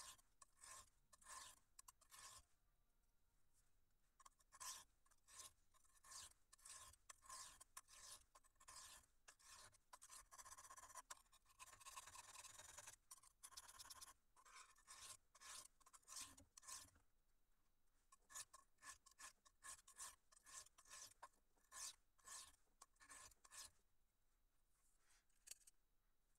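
A high-carbon steel knife blade is stroked back and forth across the coarse side of a two-sided sharpening stone. It makes a rhythmic steel-on-stone scrape, two or three strokes a second, with a stretch of faster, continuous scraping around the middle. The strokes stop near the end.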